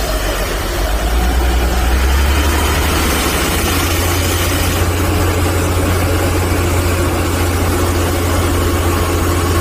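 Cummins diesel engine of a 2004 Soosan (Junjin) SD1000 drill rig running steadily; its low pitch rises about three seconds in and then holds.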